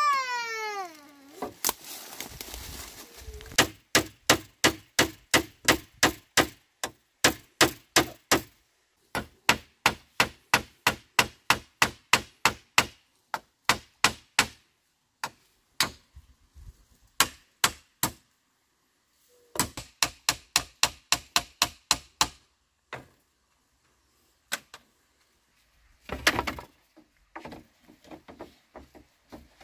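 Runs of sharp, evenly paced strikes, about two to three a second, stopping and starting every few seconds. At the very start a child's wail falls in pitch and fades.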